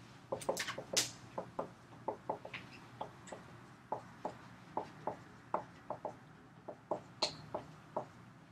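Dry-erase marker writing on a whiteboard: a quick run of small taps as each stroke is made, about two to three a second, with a few louder high squeaks of the felt tip about a second in and again near the end.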